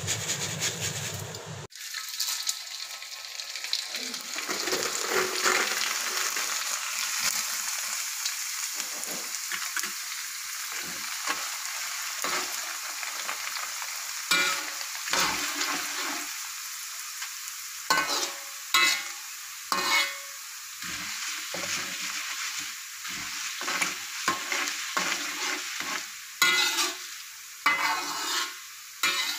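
Sun-dried leftover rice frying in hot oil in a wok with a steady sizzle as the grains puff up. A metal spatula stirs the rice and knocks and scrapes against the wok now and then, more often in the second half.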